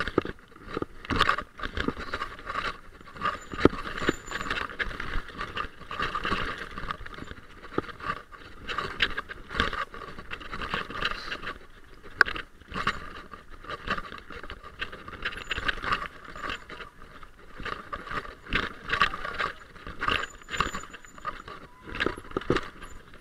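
Mountain bike clattering and rattling over a rocky trail: tyres crunching on loose stones, with irregular knocks and metallic jangling from the bike as it is shaken over the rocks.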